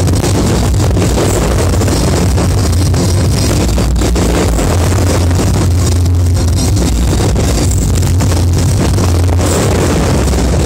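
A dense fireworks barrage bursting without pause: a heavy, continuous rumble with many overlapping bangs and crackles.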